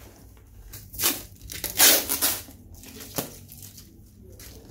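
Cardboard box being handled and opened by hand: rustling, tearing noises in two bursts, the louder about two seconds in, then a sharp tap a little after three seconds.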